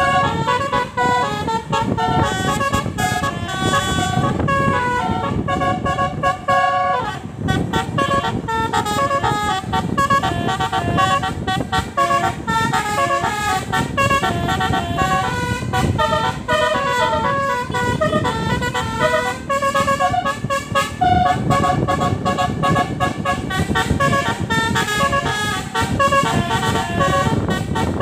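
Basuri V3 telolet horn on a tour bus playing a fast melody of stepped, multi-tone horn notes without a break, with one short falling glide about seven seconds in, over a low rumble.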